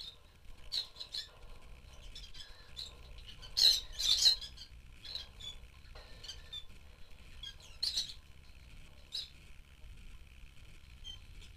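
Several rosy-faced lovebirds giving short, sharp, high chirps and squawks at irregular intervals, with a loud cluster of calls about four seconds in and another burst around eight seconds.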